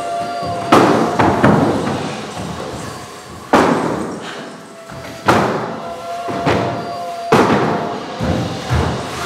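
Heavy wooden thuds of stools and crates being slammed against a stage floor, about eight hits at uneven intervals, each echoing in the hall, over background music with a steady held tone.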